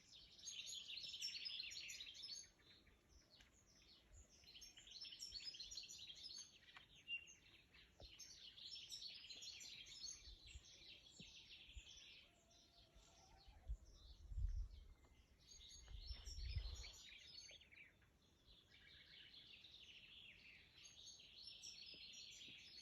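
Sparrows chirping in a continuous chorus of quick, repeated short chirps. Two brief low bumps come about two-thirds of the way through.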